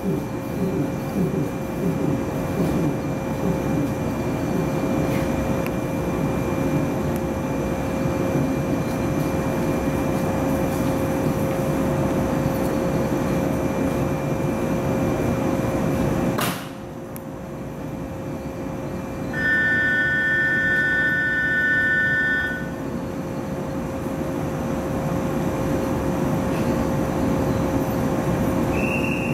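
Stationary electric train humming at a platform, its on-board equipment making a steady rough low drone with a constant mid tone. About halfway through there is a sharp click and the rough noise drops. A few seconds later a steady two-tone electronic signal sounds for about three seconds, and a short higher tone follows near the end.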